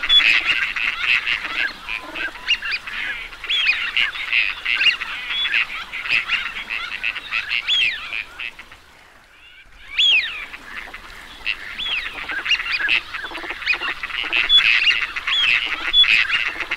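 A flock of teal ducks calling: many short, high whistled calls overlapping one another. The calling drops away briefly about nine seconds in, then resumes.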